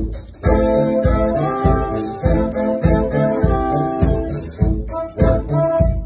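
Live band music with a horn section of trombone and saxophones playing sustained chords over a steady drum beat of about two hits a second. The band cuts out briefly just at the start, then comes back in together.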